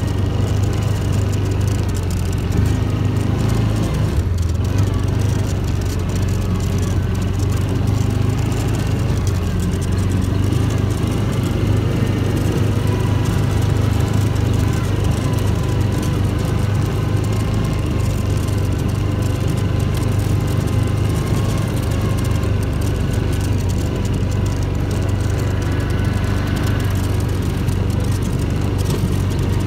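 Yamaha Rhino side-by-side's engine running under way at a steady speed, its drone holding one pitch throughout.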